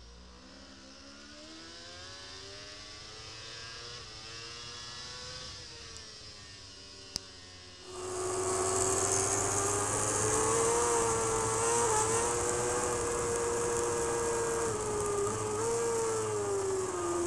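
Inline-four superbike engines heard onboard at racing speed. The engine note climbs steadily in the first half; then, after a sudden jump in loudness, a louder engine holds high revs under a rushing hiss, its pitch dipping briefly and falling near the end.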